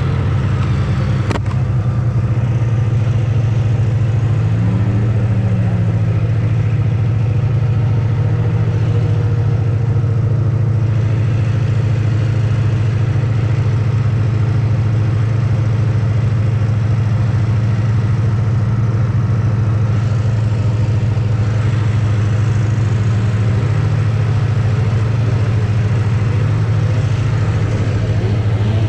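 1980 TX340 stock two-stroke racing snowmobile engine running at one steady, unchanging pitch as the sled limps along without taking throttle; the carburetor float height was set wrong and the engine is puking gas out of the overflow. Fainter engines of other sleds rise and fall in pitch now and then.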